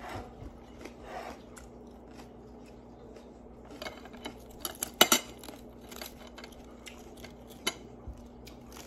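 Eating sounds at close range: chewing raw vegetables and handling crisp lettuce and cabbage leaves, with a few sharp crunches and clicks, loudest about five seconds in. A faint steady hum runs underneath.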